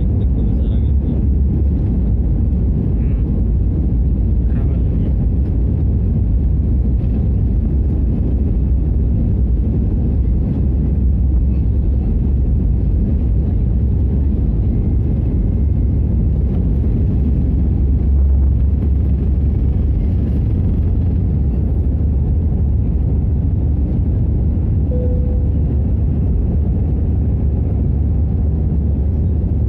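Cabin noise from an Airbus A320 with CFM56 engines at takeoff thrust: a loud, steady, deep rumble of engine and runway noise through the takeoff roll, lift-off and initial climb.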